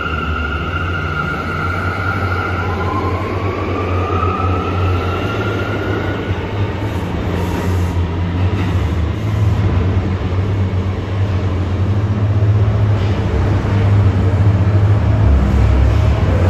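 New York City subway train with a heavy low rumble, its motor whine rising in pitch for a few seconds as the train gathers speed. The rumble grows louder near the end.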